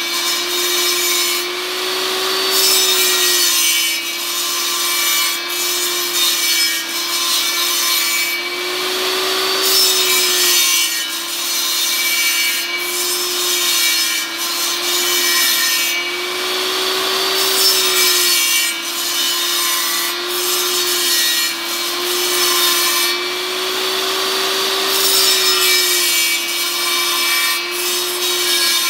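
Table saw running with its blade cutting into a block of 2x4 that is turned on a circle-cutting jig to round it off. A steady motor whine sits under the cutting noise, which swells and fades every few seconds as the block is rotated into the blade.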